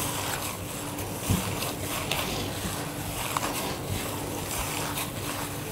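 A hand in a plastic glove squishing and kneading mashed potato and boiled chicken in a glass bowl: soft, irregular squelching over a faint steady hum.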